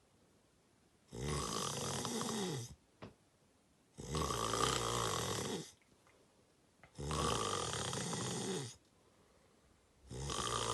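Heavy snoring from a sleeping person. There are three long snores about three seconds apart, with quiet between them, and a fourth begins near the end.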